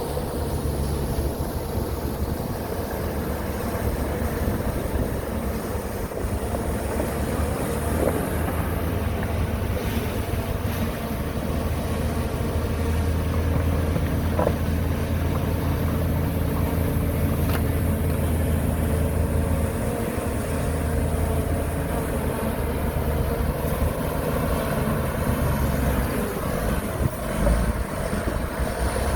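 Heavy diesel engine of earthmoving machinery running steadily, a low drone that grows a little louder in the middle, with a few faint knocks.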